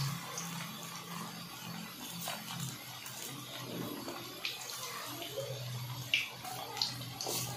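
Battered chicken pakoras deep-frying in hot oil in a large iron karahi: a steady bubbling sizzle, with a few sharp crackles in the second half.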